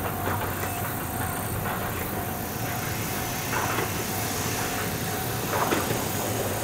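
Ohmi Railway electric train approaching from a distance: a steady low rumble of its wheels on the rails, with a couple of short clacks in the second half as it comes nearer.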